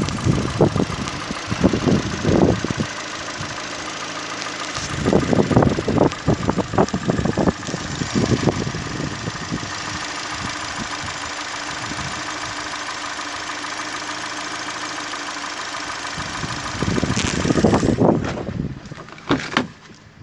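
2013 Hyundai i30's 1.8-litre DOHC 16-valve four-cylinder petrol engine idling steadily, heard with the bonnet open. Loud low rumbling on the microphone comes and goes three times: at the start, a quarter of the way in, and near the end.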